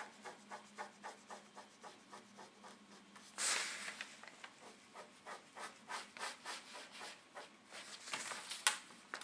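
Ballpoint pen drawing on pattern paper, a run of short scratching strokes. There is a louder, longer scrape about three and a half seconds in and a sharp tap near the end.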